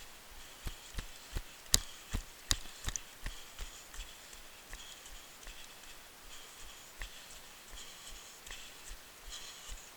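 Running footsteps on a forest trail, a steady thud about three times a second, with several sharp knocks of feet landing hard in the first few seconds.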